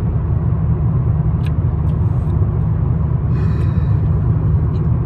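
Steady low road and engine rumble inside the cabin of a car driving along.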